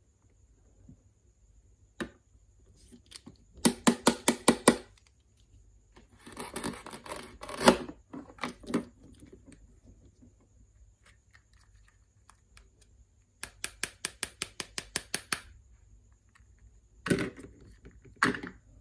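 Miniature toy kitchen utensils being handled: two runs of rapid light taps, about eight to ten a second, a stretch of scraping between them, and two knocks near the end.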